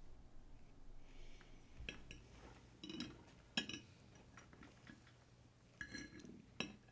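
Faint clinks of cutlery on a dinner plate: several separate sharp, ringing clicks scattered over a few seconds, as a fork and knife touch the plate while someone eats.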